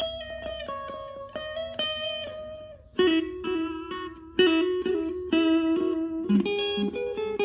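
Electric guitar played through a Boss Katana Mini amplifier: single notes plucked one after another in a melodic line, getting louder about three seconds in.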